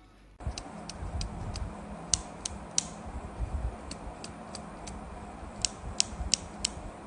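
Mechanical keyboard switches being pressed: a run of sharp, irregular clicks, about a dozen, over low handling noise. It starts abruptly just under half a second in.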